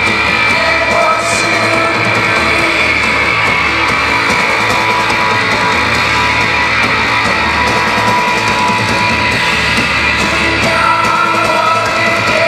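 Live rock band playing loud: electric guitar, bass guitar and a drum kit, with held guitar notes ringing over the band.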